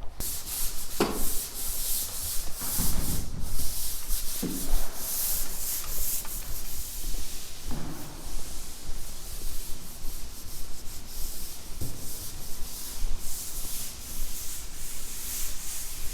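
Drywall joint compound being sanded: a steady rasping hiss with a few faint knocks.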